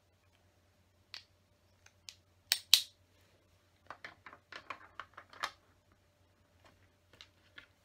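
Small LEGO plastic pieces clicking as a window piece is handled and pressed into a brick wall: two sharp, loud clicks about two and a half seconds in, a quick run of lighter clicks a second or so later, and a few scattered ones near the end.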